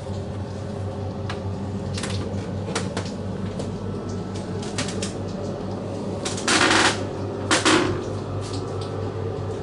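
A steady low mechanical hum with scattered light clicks and knocks, and two louder rustling bursts about two-thirds of the way through.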